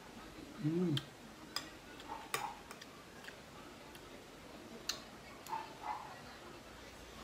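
Metal spoon clinking and scraping against a dish about seven times while eating, some clinks ringing briefly. A short vocal sound from the eater comes a little before the first clink.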